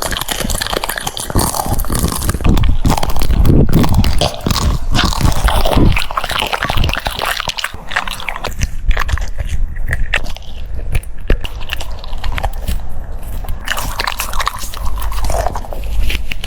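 French bulldog biting and chewing crunchy food, a dense run of irregular crunches and clicks.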